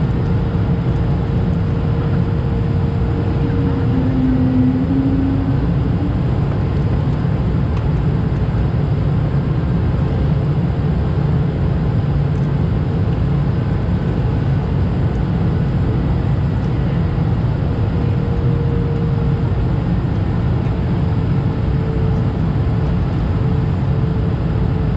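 Steady cabin noise inside an Airbus A220-300 in flight: the deep, even roar of its Pratt & Whitney PW1500G geared turbofan engines and the airflow over the fuselage, with a faint steady hum above it.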